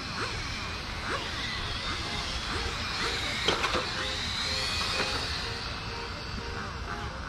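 Electric RC touring cars' brushless motors whining, the pitch rising and falling with throttle, with a few sharp knocks about three and a half seconds in.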